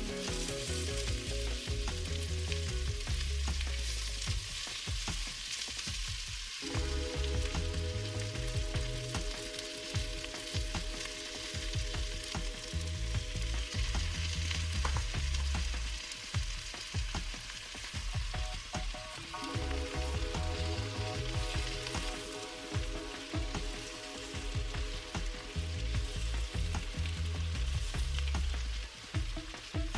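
Diced sausage and red onion sizzling as they fry in a stainless steel pot, stirred with a wooden spatula. Soft background music with a pulsing bass plays underneath.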